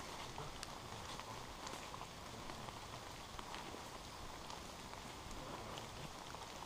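Light rain falling in woodland, a steady hiss with scattered drops ticking now and then.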